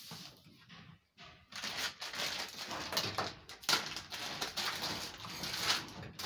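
Clear plastic packaging rustling and crinkling as it is handled, an irregular crackle over several seconds beginning about a second and a half in.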